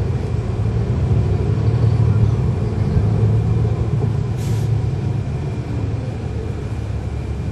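Cummins ISL9 diesel engine of a NABI 40-SFW transit bus running steadily, heard from inside the bus, with a short hiss of air about four and a half seconds in.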